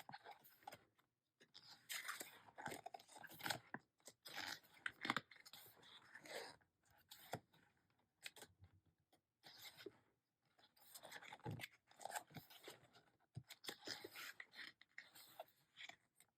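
Faint, intermittent rustling and soft taps of an album photo book's pages being turned and handled.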